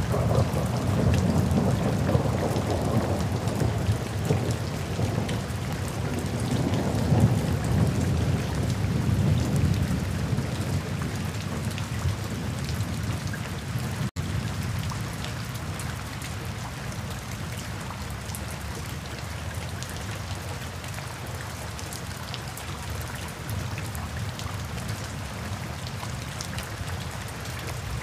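Steady rain falling, with a low rolling thunder rumble under it through roughly the first half. The sound cuts out for an instant about halfway, then the rain carries on as an even patter with little rumble.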